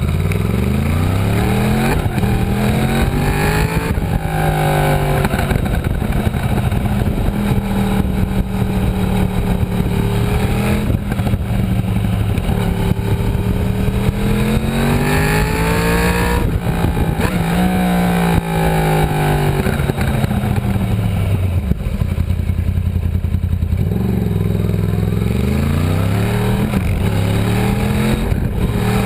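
Yamaha R1 (RN22) crossplane inline-four on its stock exhaust, heard onboard, revving up hard and dropping back again and again as it accelerates and slows, with one deep dip in pitch past the middle.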